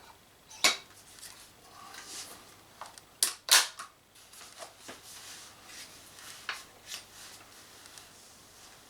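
Clicks and knocks from handling and loading an airsoft grenade launcher, with a pair of sharp clacks about three and a half seconds in that are the loudest, and softer rustling in between.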